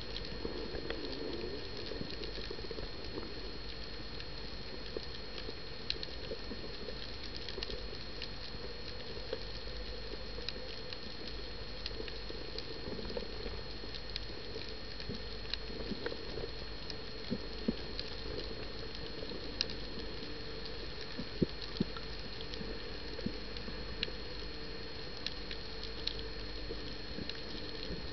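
Underwater ambience heard through a submerged camera: a constant crackle of scattered small clicks and pops over a steady hiss, with a thin steady high tone.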